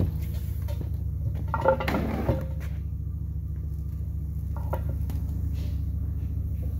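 A steady low mechanical hum, with a few sharp metal clanks and a brief ring about two seconds in and a single knock near five seconds.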